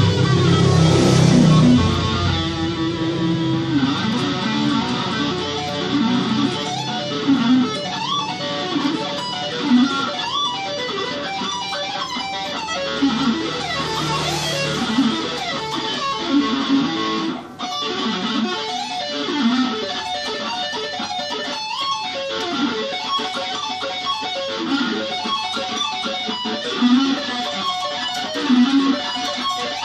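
Schecter Omen Extreme 6 electric guitar played through a Roland Cube amplifier: a low chord rings for about two seconds, then a run of quick single notes with slides and bends, with a short break about halfway through.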